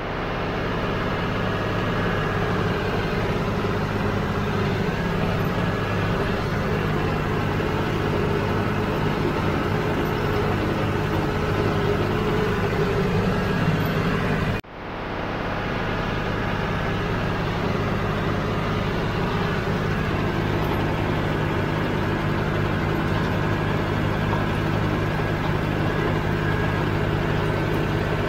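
Tractor engine running steadily under load, pulling a Rhino rotary cutter (bush hog) mowing roadside grass. The sound drops out for an instant about halfway through, then the same steady drone resumes.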